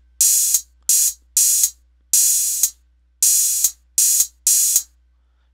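808 open and closed hi-hat samples played from a Maschine Studio's pads: seven sharp hissy hits, the longer open hats mixed with shorter closed ones. Each ends abruptly, the two hi-hats being set to the same choke group so one cuts the other off.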